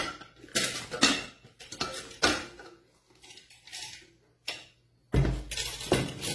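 Aluminium pressure cooker being opened: the metal lid scrapes and clanks against the pot as it is twisted free and lifted off, in a run of separate clatters with a heavier thump about five seconds in.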